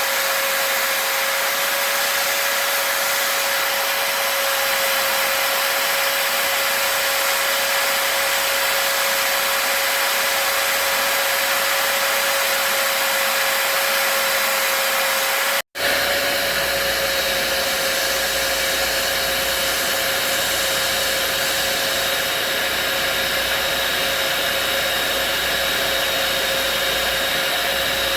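Electric drill spinning a sanding disc against a wooden hiking stick: a steady whine over a hiss of abrasion. It drops out for an instant about halfway through.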